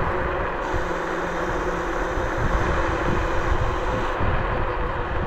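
Bluetran Lightning 72V electric scooter riding along, with wind buffeting the microphone and a steady road-noise hiss, and a faint steady hum from the motor.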